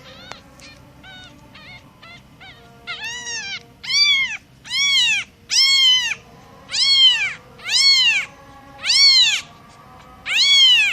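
A cat meowing over and over, about one meow a second, each call rising then falling in pitch. The meows are faint at first and get much louder from about three seconds in.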